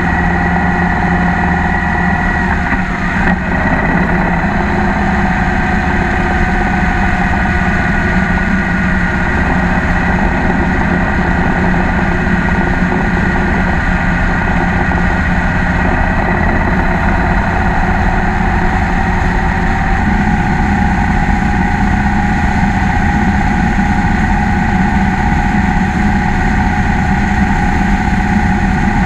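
Cruiser motorcycle engine running steadily while riding at road speed. About three seconds in its pitch drops and the sound dips briefly, then it runs on steadily with small changes in pitch.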